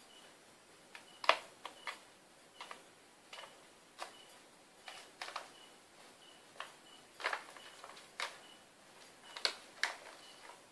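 A plastic Friskies cat-food pouch crinkling and crackling in short, irregular bursts as kittens nose and paw at it on a tile floor.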